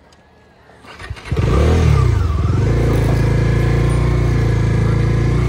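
Bajaj Dominar 250's single-cylinder engine starting about a second in: it catches with a brief flare of revs that falls away, then settles into a steady idle.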